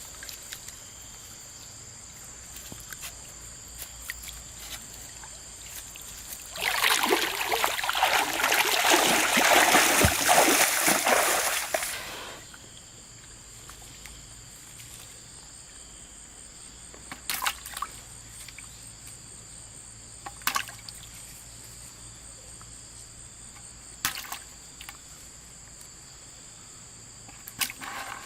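River water splashing and sloshing hard for about five seconds in the middle, over a low steady trickle of water, with a few short sharp knocks later on.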